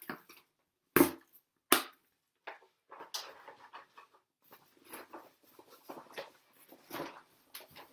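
Snowshoes being handled: two sharp clicks a little under a second apart, then a few seconds of quieter, irregular rustling and light knocks.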